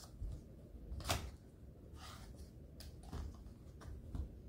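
Small cardboard product box being opened and handled: scattered taps, clicks and short rustles, the sharpest a click about a second in.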